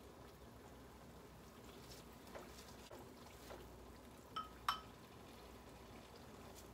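A basting brush clinks twice against a small glass bowl of barbecue sauce, a bright short ring each time, about four and a half seconds in. Around it is only faint room sound and a few soft ticks.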